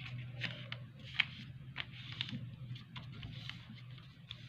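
Sheet of paper rustling and crinkling as hands fold it and press the creases flat, in short, irregular crackles with a sharper one about a second in, over a faint steady low hum.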